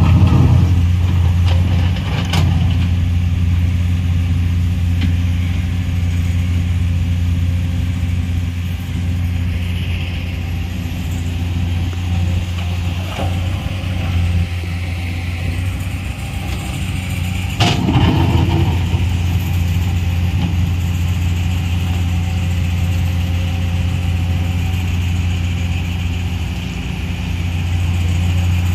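Komatsu PC210 LC hydraulic excavator's diesel engine running steadily as it digs and dumps earth. A few sharp knocks near the start and a louder knock with a short rumble about two-thirds of the way in.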